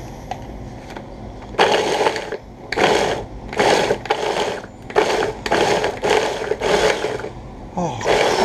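Prolex electric mini chopper pulsing, its motor and blade whirring through two onions in a run of short bursts, each under a second, starting about a second and a half in.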